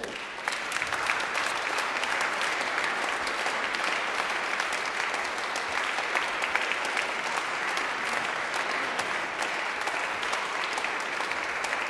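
A crowd applauding: steady clapping of many hands that begins just as the talk stops, then fades away.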